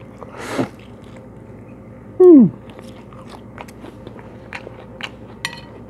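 Close-up eating sounds: a bite into a fresh lettuce-and-herb wrap, then chewing with many small wet mouth clicks and leafy crunches. About two seconds in, a short, loud hum from the eater that falls in pitch.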